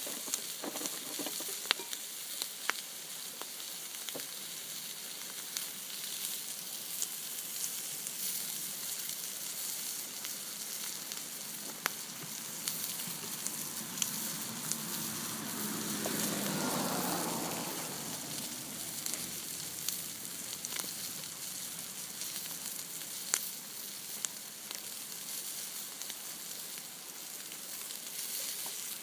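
Food frying in a hot pan at an outdoor cookout: a steady sizzle with frequent sharp pops. The sizzle swells louder for a couple of seconds about halfway through. The food is starting to scorch.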